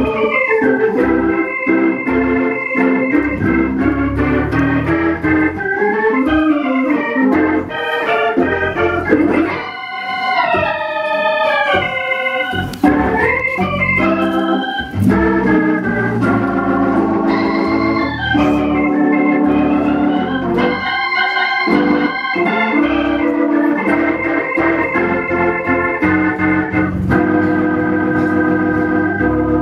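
Organ music: held chords, with stretches of quick runs of notes about ten seconds in and again past the middle.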